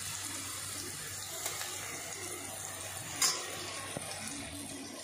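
Chopped onions and ginger-garlic paste frying in hot oil in a steel pan, a steady sizzle, with one short knock of the spoon against the pan about three seconds in.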